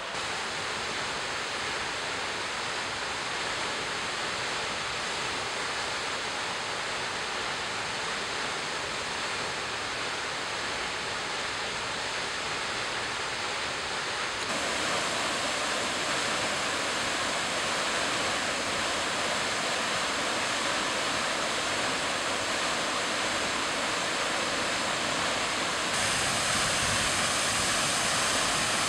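Waterfall rushing steadily in an even roar of falling water. It grows louder in two sudden steps, about halfway through and shortly before the end.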